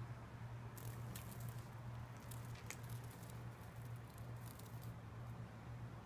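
A cat playing with a caught cicada on carpet: faint scattered pats, rustles and ticks, a small cluster about a second in and a few more later, over a steady low hum.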